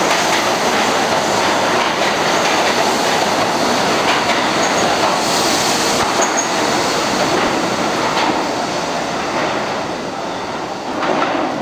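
New York City subway D train running out of an underground station, its wheels clattering over the rails with a couple of brief high squeals about halfway. The noise fades from about two-thirds of the way in as the train recedes down the tunnel, with a short swell near the end.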